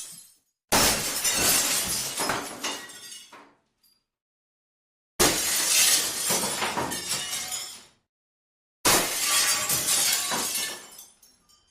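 Glass smashing three times, each crash starting suddenly and then trailing off over a couple of seconds as the pieces tinkle and settle, with silent gaps in between.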